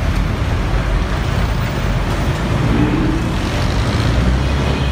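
Jeepney engine running with road and traffic noise, heard from on board the moving vehicle as a steady low drone.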